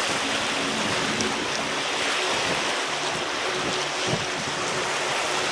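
Steady rushing noise with a faint low hum underneath.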